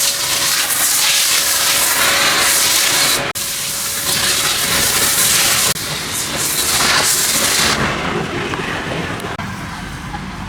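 Pressure washer spraying water in a loud steady hiss, broken briefly about three seconds in and again near six seconds, turning duller and quieter toward the end.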